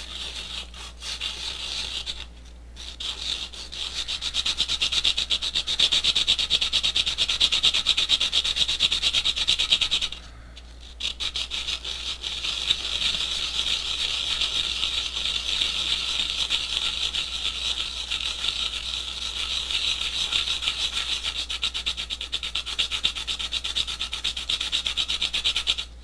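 Aluminium can lid rubbed hard against 120-grit sandpaper, a steady fast scraping with two short pauses, about two seconds and ten seconds in. The sanding is wearing down the lid's aluminium until the centre can be popped out of the outer edge.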